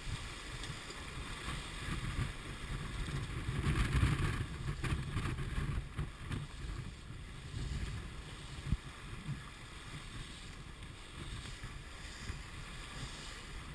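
Wind buffeting the microphone over water rushing and splashing along the hull of a J30 sailboat heeled and beating upwind through chop. The rush surges louder in the first few seconds, then eases.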